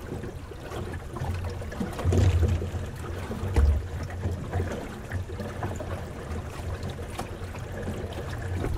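Water gurgling and trickling along the hull of a small wooden sailing dinghy under way, with an uneven low rumble (loudest about two and three and a half seconds in) and a few light clicks and knocks.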